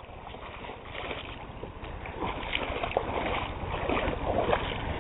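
Shallow river water splashing and sloshing as someone climbs out of a kayak and wades, the splashes growing louder about two seconds in, over a low rumble.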